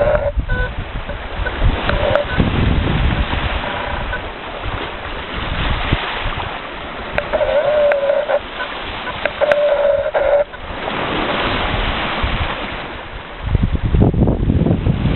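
Lake Superior waves washing onto a rocky shore, with wind buffeting the microphone in gusts, heaviest near the end. Around the middle a bird gives two short, wavering calls.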